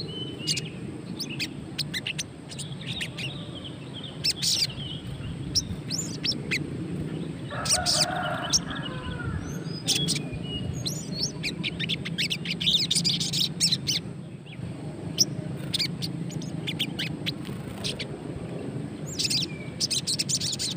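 Olive-backed sunbird (sogon) giving short, high, sharp chirps and twitters in scattered runs, with a lower, fuller call about eight seconds in. It is a wild-caught bird about two weeks in care, singing but not yet in full song.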